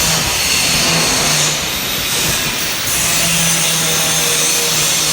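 Steady welding-shop noise from cutting and welding work: a loud, continuous hiss with a low hum that comes and goes.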